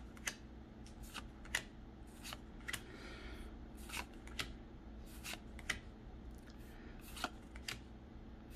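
Pokémon trading cards being flipped one at a time off a hand-held stack, each card making a small sharp snap, roughly two a second at an uneven pace, with a soft rustle about three seconds in, over a faint steady hum.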